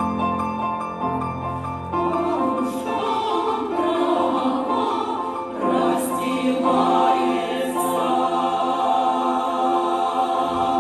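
Women's choir singing a song in held chords with grand piano accompaniment; the voices swell louder about halfway through.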